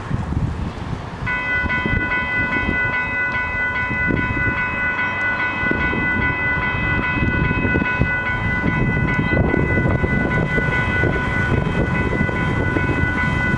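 Railway level-crossing warning bell starting about a second in and ringing steadily and unbroken, a multi-toned electronic ringing, set off by an approaching GO Transit commuter train; wind rumbles on the microphone underneath.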